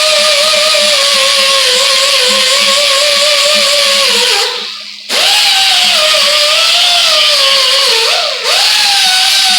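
Angle grinder grinding weld beads off sheet steel: a steady motor whine with a grinding hiss. It cuts out about four and a half seconds in, spins back up with a rising whine, and bogs down briefly near the end.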